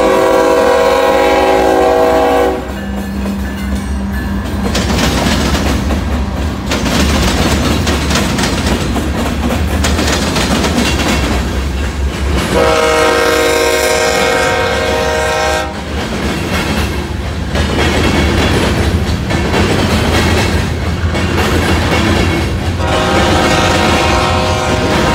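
BNSF rock train's diesel locomotives passing, the multi-note air horn sounding three times: a blast that cuts off about two and a half seconds in, another of about three seconds near the middle, and a third starting near the end. Between the blasts the train's wheels rumble and clatter steadily on the rails.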